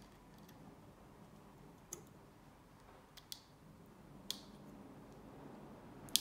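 A GoPro Hero 8 action camera being handled at its battery and memory-card compartment: about five small, sharp plastic clicks, spread out, the loudest near the end.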